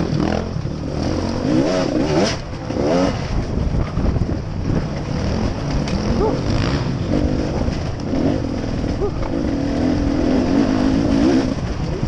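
Dirt bike engine running under a rider on rough downhill terrain, revved up in short rising bursts in the first few seconds, then holding a steadier drone in the second half.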